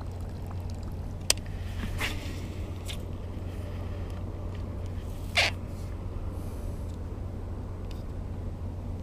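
Steady low rumble of wind on an action-camera microphone, with a few short clicks and scrapes from hands handling a baitcasting rod and reel; the loudest, a brief rasp, comes about five seconds in.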